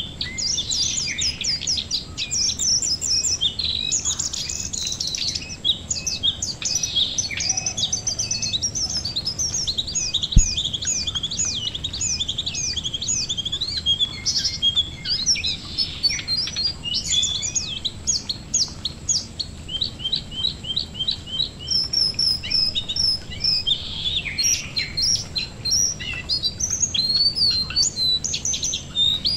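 Ashy tailorbirds (jongkangan) calling in quick, continuous runs of sharp chirps and trills, over a soft hiss of rain falling on water. A single sharp tap sounds about ten seconds in.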